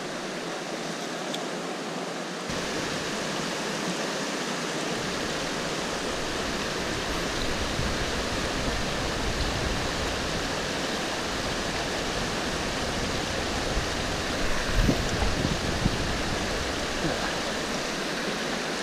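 River water rushing steadily, a full, even flow, with a few low bumps about three-quarters of the way through.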